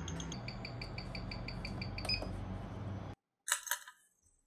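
Ticking of a Universal Geneve dress watch at 21,600 beats per hour, about six ticks a second, amplified by a timegrapher over a low hum. It cuts off about three seconds in, followed by one short faint sound.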